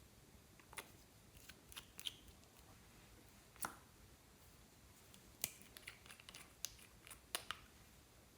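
Slime being worked by hand, giving sparse, faint clicks and small pops at uneven intervals.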